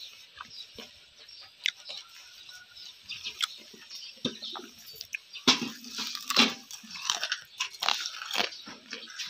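Fuljhuri pitha deep-frying in a wok of hot oil, a steady crackling sizzle, with metal utensils clinking and scraping against the wok; the knocks come more often and louder in the second half.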